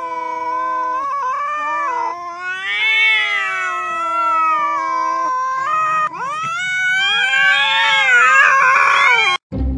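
Two cats yowling at each other face to face in a standoff: long, drawn-out, wavering howls that rise and fall in pitch, one after another. After a break about six seconds in, more yowling follows, and it cuts off just before the end.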